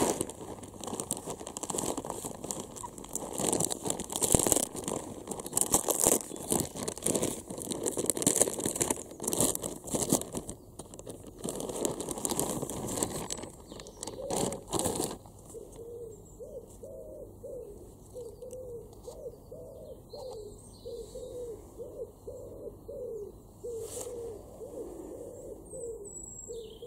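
Clear plastic bag crinkling and rustling as a plush toy is worked out of it, stopping about halfway through. Then a pigeon cooing, short low notes repeated about twice a second.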